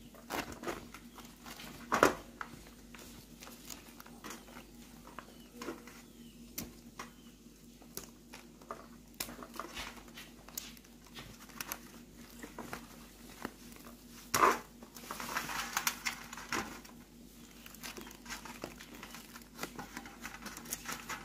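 Large green leaves rustling and crinkling as they are folded by hand into a square wrap around sticky rice, with scattered light taps on a metal tray. Two sharper knocks, about two seconds in and about halfway through, the second followed by a longer rustle.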